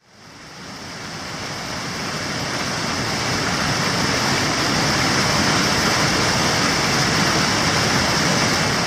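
Waterfall: a steady rush of falling water that fades in over the first few seconds and then holds steady.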